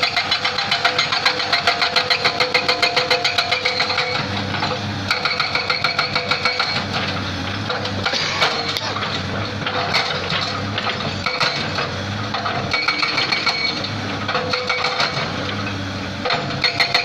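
Excavator-mounted hydraulic breaker hammering rock in rapid, even blows, several a second, in spells that stop and start, with the excavator's engine running between and under them.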